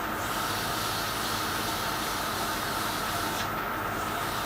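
Metal lathe running while emery cloth on a wooden backing stick is pressed against the spinning cast-iron eccentric, a steady abrasive hiss over the hum of the machine. The hiss eases briefly about three and a half seconds in.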